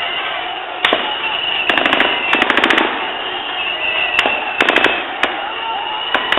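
Street protest crowd noise with held shrill whistling, broken by several short, rapid bursts of sharp cracks: about one second in, around two and two and a half seconds in, and again near five seconds.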